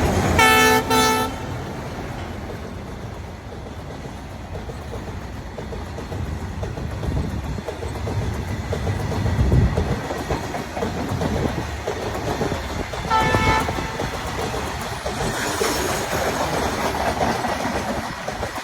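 Indian Railways train running with a steady rumble, its horn sounding in two short blasts, about half a second in and again about thirteen seconds in.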